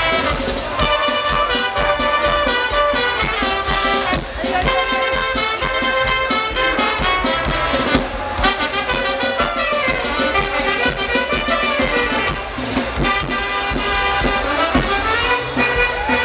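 Brass band music with trumpets and trombones, playing a tune with a steady beat.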